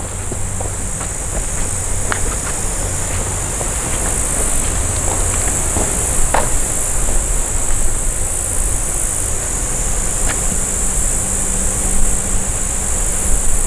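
A steady, high-pitched chorus of shrilling insects, over a low rumble with a few scattered light clicks.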